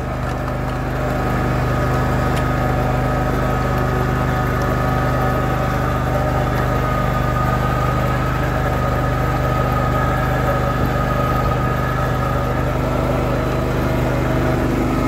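Cub Cadet GT2544 garden tractor's engine running steadily under load while dragging a lowered blade through sand, with a steady high whine from its BDU-10 hydrostatic transmission. It grows a little louder about a second in.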